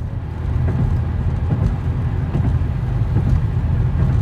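Subaru flat-four engine running steadily through a straight-piped exhaust (muffler and resonator deleted, Magnaflow glass pack), a loud deep exhaust rumble just after start-up. The owners think the new exhaust is leaking somewhere.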